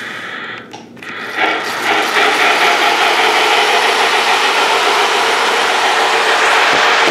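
Lionel model train running on the track, its motor and wheels making a steady mechanical whirr that grows louder about a second and a half in and then holds steady.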